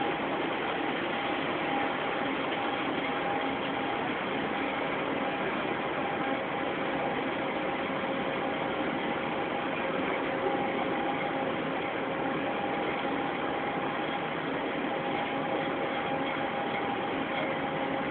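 Steady running noise of a vehicle in motion: an even rush that does not change, with a faint steady whine over it.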